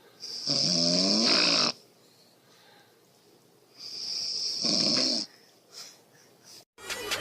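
A woman snoring: two loud, drawn-out snores about two seconds apart, each lasting well over a second with a buzzing, wavering pitch. Music starts just before the end.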